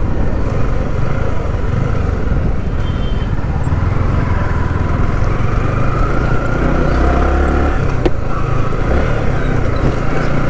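Yamaha R15 V3 motorcycle's single-cylinder engine running at low town speed, heard from the rider's seat as a steady low rumble under road noise.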